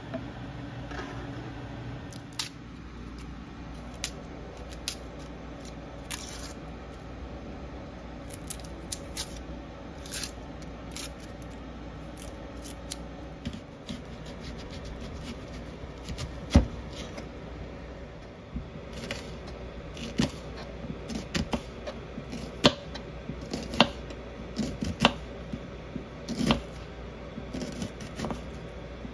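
Kitchen knife slicing a red onion on a plastic cutting board: sharp knocks as the blade meets the board, scattered at first and coming more often over the last ten seconds.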